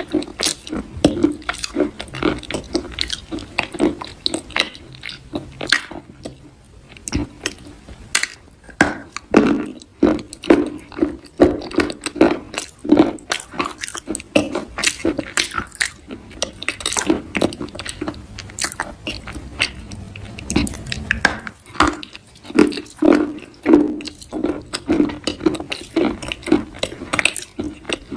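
Close-up chewing of crunchy food: a person bites and chews over and over, giving irregular soft, crisp crunches several times a second.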